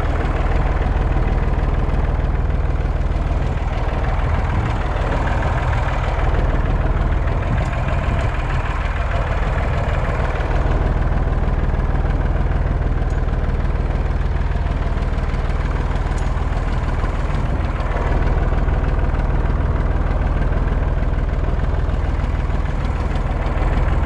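Farm tractor engine running steadily under load as the tractor climbs a grassy hill, heard up close from on the tractor, with a strong low rumble.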